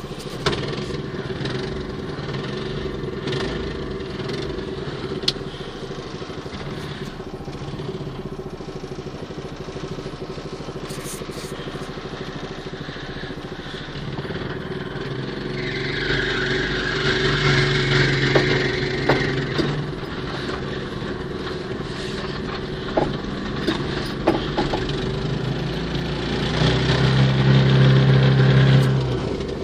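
A 6.5 hp single-cylinder walk-behind-tractor engine, fitted in a VAZ 2109 in place of its own engine, running steadily. The revs rise about halfway through, and rise harder near the end before dropping back.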